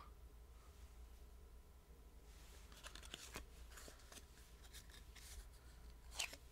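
Game cards being handled: faint scattered clicks and rustles over a low room hum, with a slightly louder rustle near the end.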